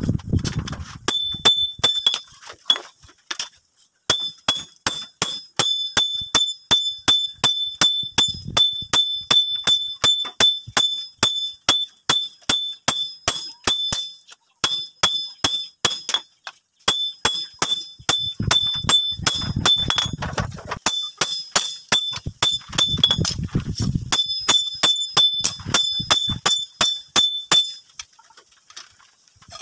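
Hand hammer striking red-hot leaf-spring steel on a steel anvil block, forging a cleaver blade: steady blows about three a second, each with a high ringing ping from the anvil. The hammering breaks off in a few short pauses and stops near the end.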